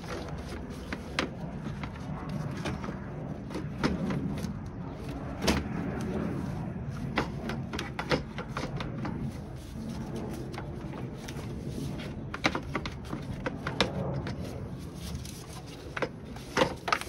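Plastic cooling fan shroud being twisted and worked free of a Honda Civic's radiator: irregular knocks, clicks and scraping of hard plastic, some in quick runs, over a steady low hum in the background.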